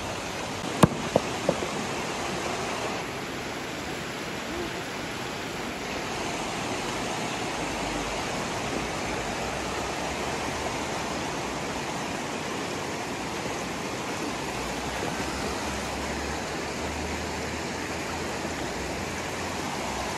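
Shallow river water rushing steadily over rocks in a riffle. About a second in there is one sharp knock, followed by two lighter clicks.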